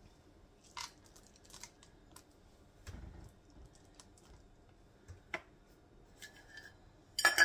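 Chocolate chips being sprinkled by hand onto oatmeal bars in a glass baking dish: scattered light, irregular ticks and clicks, with a louder clink near the end.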